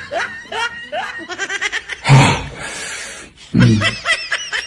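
Laughter in short, quickly repeated bursts, broken twice by loud, harsh outbursts: one about two seconds in and another about a second and a half later.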